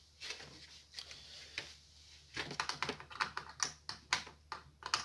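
Light, irregular clicks and taps of hands handling parts and a cable, sparse at first and then a quick run of clicks from about two seconds in.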